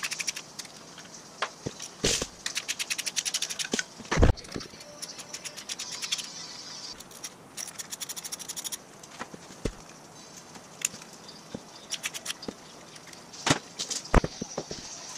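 Socket ratchet clicking in quick, even runs while the bolts holding the exhaust manifold to a Ford 59AB flathead V8 block are undone, with a loud metal knock about four seconds in. Near the end come a few sharp clanks as the cast-iron manifold comes off the block.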